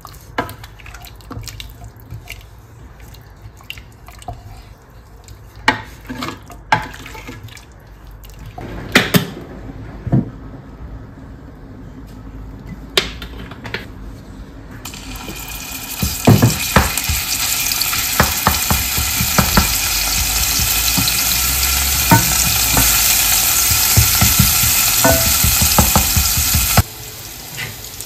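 Dishes and utensils clinking and knocking, then a kitchen tap running into the sink from about halfway through, with more clatter under the running water; the tap is shut off sharply near the end.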